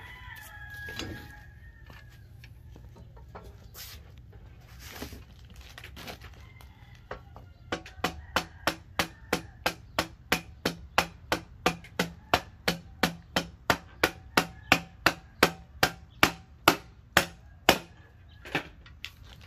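A mallet tapping the top of a steel exhaust header over and over, about three blows a second, starting about eight seconds in, to drive a slip-fit pipe section fully onto the header's runners. A few short bird-like calls come in the first two seconds.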